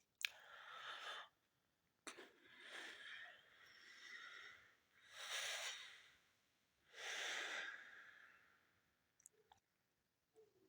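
Faint, breathy sniffles and heavy breaths of a woman crying, about five in a row, each lasting around a second.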